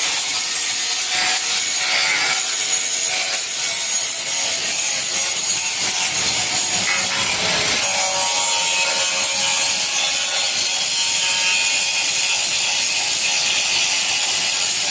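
Steady, harsh hissing noise of metal repair work, strongest in the high pitches, with faint steady whining tones coming in about halfway through.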